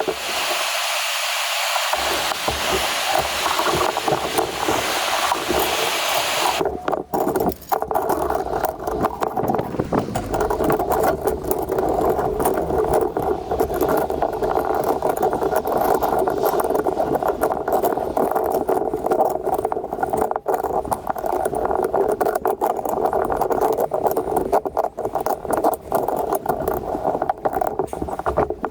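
Steady blowing rush of a heating tool heating the broken recoil starter spring so its end can be reshaped. A bright hiss changes about seven seconds in to a lower, steadier rush with crackling.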